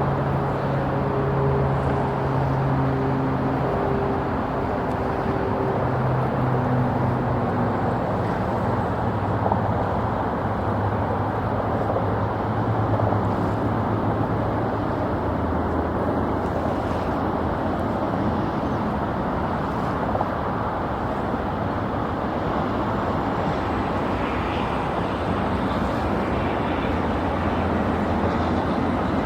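Steady rushing and rumbling noise of a Boeing 787 jet airliner on final approach, with low engine tones shifting in the first several seconds and a faint high whine joining near the end.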